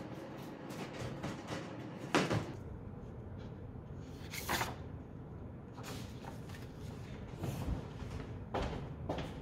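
Scattered handling noises: light clicks and knocks with several brief rustles, as of someone moving things about and handling paper.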